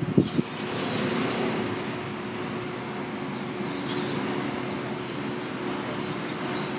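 Outdoor background: a steady low hum with faint short bird chirps scattered through, and a few brief low thumps in the first half second.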